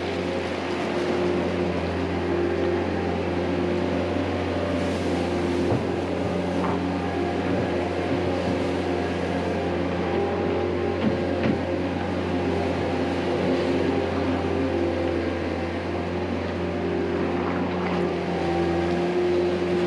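An engine running steadily, a low, even drone that holds one pitch throughout and cuts off suddenly at the end.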